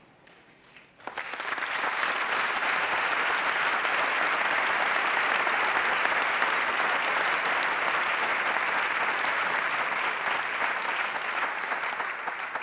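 Audience applauding: the clapping starts suddenly about a second in, holds steady and dense, and tapers off near the end.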